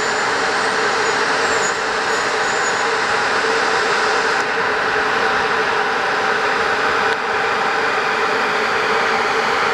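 Electric locomotive approaching slowly along a station track: a steady, loud hum from its blowers and running gear, with a steady low tone held throughout.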